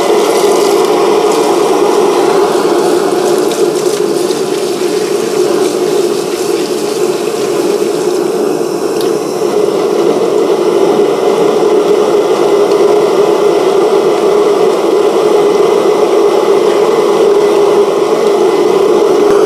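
Furnace heating a silica crucible to melt flux into a glaze: a loud, steady rushing noise with a low hum under it, easing slightly for a few seconds early on.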